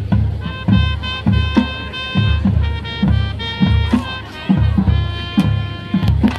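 Marching band playing, coming in suddenly at the start: a deep bass line pulsing about twice a second under held chords.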